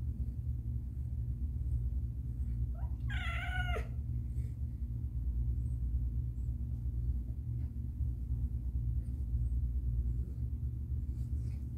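A cat gives a single wavering meow about three seconds in, lasting about a second and dropping in pitch at the end, over a steady low hum.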